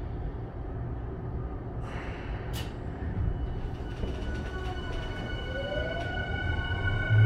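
Running sound of a Tokyu 5050 series train heard inside the car: a steady low rumble with a few clicks, then, from about five seconds in, the rising whine of the Hitachi IGBT-VVVF inverter and traction motors as the train powers up.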